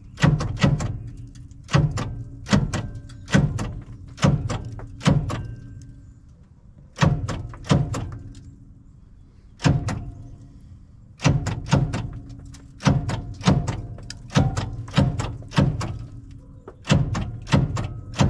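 Starter on a GMC 401 V6 engine hitting against it in repeated heavy clunks, often two or three in quick succession, with longer pauses near the middle. The engine, seized from years of sitting, only nudges over a little instead of cranking; something is holding it back.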